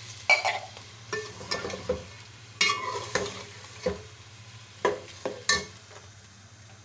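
A metal slotted spoon stirring chicken, peas and onions in a metal cooking pot, scraping and clinking against the pot about ten times at an irregular pace, over a faint sizzle of the masala frying.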